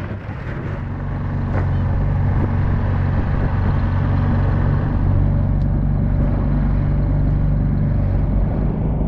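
An inflatable dinghy's outboard motor running under way. It grows louder over the first couple of seconds, then holds a steady drone.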